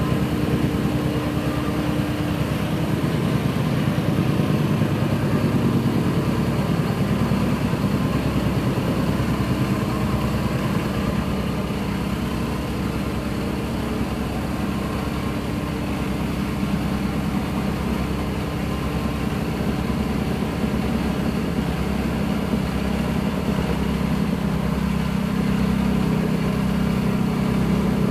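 Petrol-engined tamping rammer (jumping-jack compactor) running and pounding in a rapid, steady rhythm as it compacts the soil fill of a house floor.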